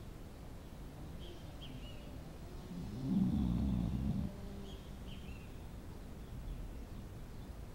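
Dog snoring: one long, low snore about three seconds in, lasting just over a second.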